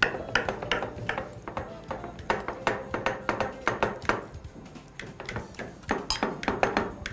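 Serving utensils, a spatula and a fork, knocking and scraping against a ceramic baking dish and plates: a run of irregular light clinks and taps.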